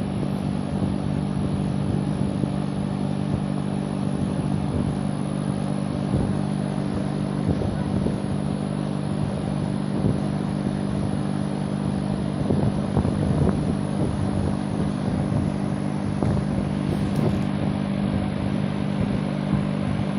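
A steady mechanical hum, like an engine running at idle, holding several low tones level throughout, with only faint scattered knocks over it.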